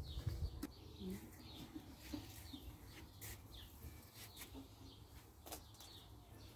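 Small birds chirping: short, high, falling chirps repeated every half second to a second, faint over a low rumble.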